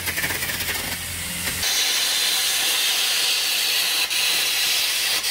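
Air carbon arc gouging on heavy steel plate. For the first second and a half the arc crackles and buzzes with a low hum. Then comes a loud, steady hiss as the arc and air jet blast molten metal and sparks off the plate.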